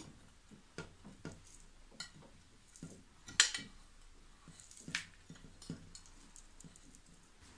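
Light clinks and taps of a plate and tableware as ground biscuit crumbs are tipped into the blender jug, with one sharp clink about three and a half seconds in and another about five seconds in.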